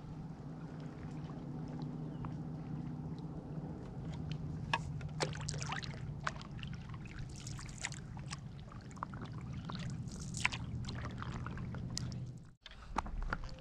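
Paddleboard paddle dipping into lake water, with a run of short splashes and drips from about four seconds in as strokes are taken, over a low steady hum. The sound cuts off suddenly near the end.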